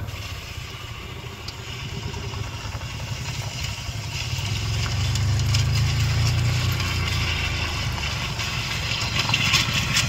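Cushman utility vehicle running at low speed while dragging a cut cedar tree behind it over gravel and concrete; the steady engine hum sits under the crunch and scrape of branches on the ground, which grows louder about halfway through.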